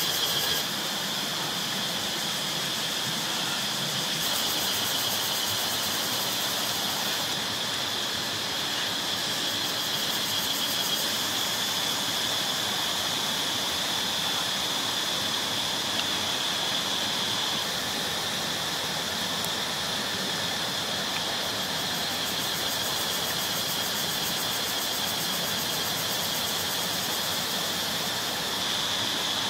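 Steady forest ambience: a continuous high-pitched insect drone over an even hiss.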